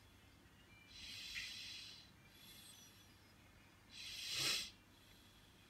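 Soft breaths close to the microphone: a breathy puff about a second in and a louder, fuller one near the end.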